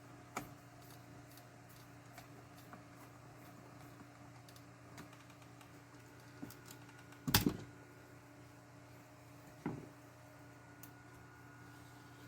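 Scattered light clicks and taps of small parts and a screwdriver being handled on a plastic RC truck, with a louder knock about seven seconds in and a smaller one a couple of seconds later, over a faint steady hum.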